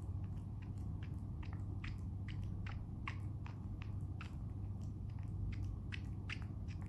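Toy poodle puppy making rhythmic suckling and smacking clicks with its mouth in its sleep, about three a second, as if dreaming of drinking milk.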